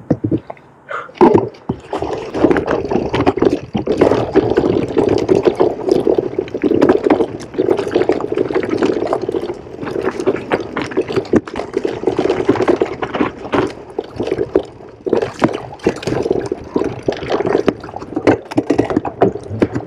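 Mountain bike ridden over rough, rocky trail: a continuous rumble of tyres with frequent rattling knocks from the bike as it hits rocks, starting about a second in.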